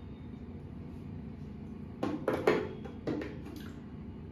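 A few sharp knocks and rattles of small makeup items being handled and set down, clustered about two seconds in with one more about a second later, over a steady low room hum.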